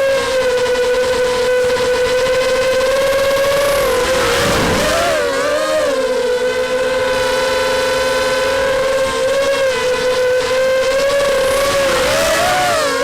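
Racing quadcopter's 2206 brushless motors whining at a steady pitch. About four seconds in there is a brief rushing burst where the pitch dips and wavers, and the pitch wavers again near the end as the throttle changes.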